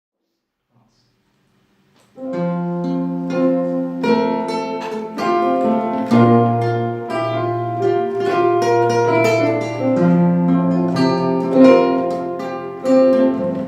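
Instrumental introduction to a slow song, played on plucked strings over held low notes, starting about two seconds in after silence.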